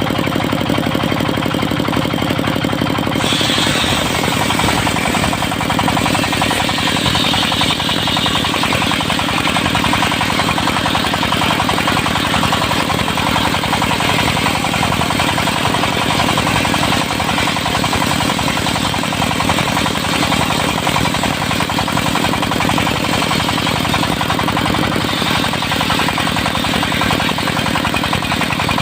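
Diesel engine of a mobile circular sawmill running steadily; about three seconds in a harsh high-pitched hiss joins as the circular blade starts cutting through mahogany, and the cut goes on to the end.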